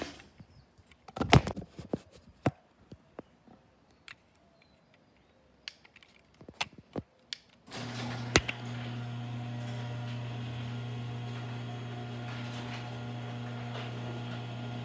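Garage door opener motor cutting off, then scattered clicks and knocks from the door and opener. About eight seconds in, an opener starts and runs with a steady low hum as the door travels, with a sharp click just after it starts.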